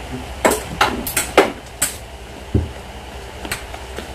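Metal walking canes, one with a four-footed quad base, knocking and clacking on a tiled floor as they are handled: a string of sharp, irregular knocks, with one duller thump about two and a half seconds in.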